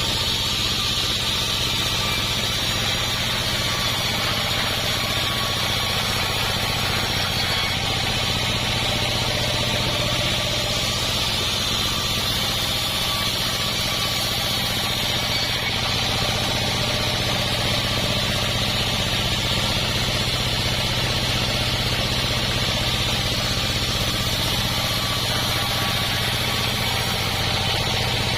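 Sawmill's engine running steadily at an even speed.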